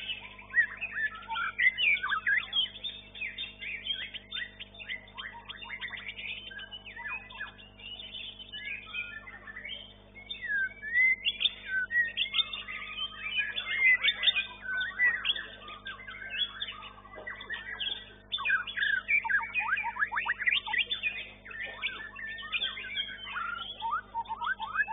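White-rumped shama (murai batu) singing a varied, continuous run of whistles, chirps and fast trills, with denser runs of quick repeated notes in the second half. A steady low electrical hum lies underneath.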